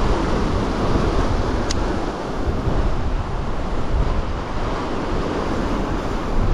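Sea surf breaking and washing over rocks, with strong wind buffeting the microphone in a low rumble. A single sharp click sounds a little under two seconds in.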